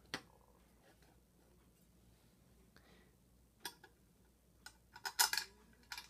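The cover of a vintage Vulcan Autosonic SRO-4 smoke detector being fitted back onto its base by hand: scattered light clicks and clatters, the loudest cluster about five seconds in.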